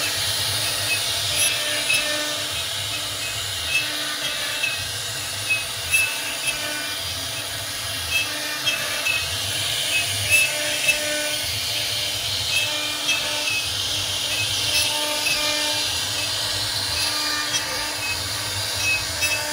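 CNC router spindle running and a small end mill carving relief into a wooden door panel: a steady hissing cutting noise with a faint tone pulsing about twice a second and frequent brief louder spikes as the bit bites into the wood.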